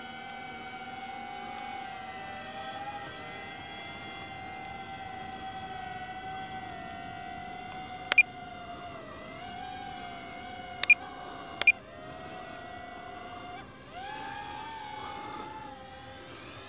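DJI Avata 2 FPV drone's ducted propellers making a steady high whine that wavers slightly in pitch, dips and then rises higher about three-quarters of the way through as the drone speeds up. Three short, sharp beeps stand out over it about halfway through, two of them close together.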